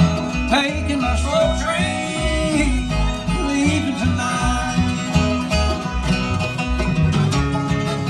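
Live bluegrass band playing, picked string instruments over a steady low bass beat.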